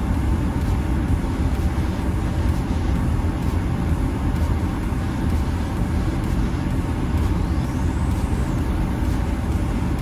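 Steady road noise heard inside a moving car's cabin: tyres running on a snowy highway, under the car's low engine drone.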